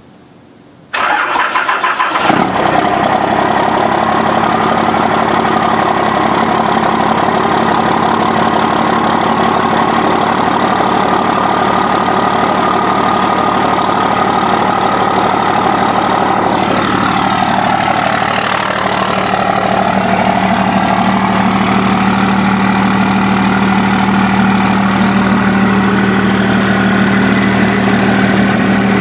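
Dodge pickup's 12-valve Cummins diesel cranking briefly and catching about a second in, then idling steadily.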